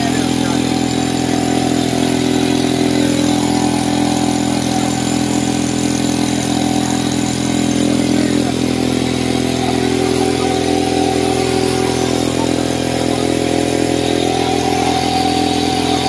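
Motorcycle engine running on LPG, holding a steady, unchanging speed as it drives a makeshift generator.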